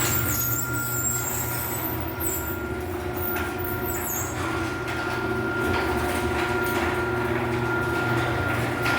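LiftMaster garage door opener running as it moves the door: a steady motor hum with a thin high whine and light clicks and rattles.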